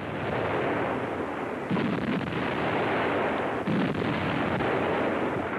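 Artillery gunfire on an old newsreel soundtrack: a continuous dense din of firing, with two heavier reports about a second and a half and nearly four seconds in.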